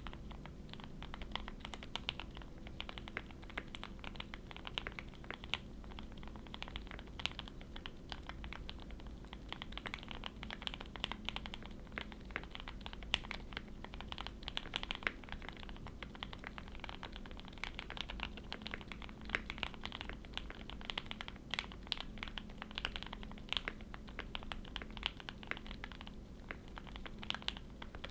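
Continuous fast typing on a custom gasket-mounted mechanical keyboard (QK65v2) with hand-lubed Gateron Milky Yellow Pro linear switches on an FR4 plate and GMK keycaps. The keys give a muted, "thocky" bottom-out with a slight scratch, over a faint steady low hum.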